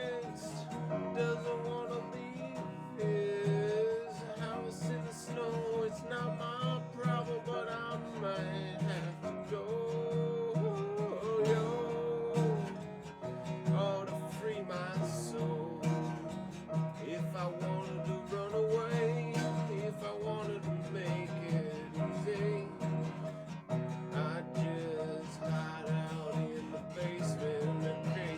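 Acoustic guitar strumming a song with a wavering melody line over it, in an instrumental stretch between sung verses.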